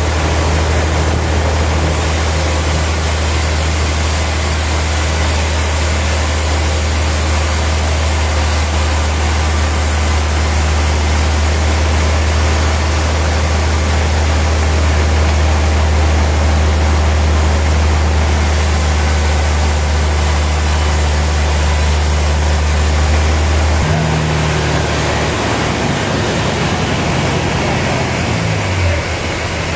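Sawmill machinery running steadily: a loud, even rush of noise over a deep hum. About three-quarters of the way through, the hum breaks off and a lower tone slides downward, as a machine slows.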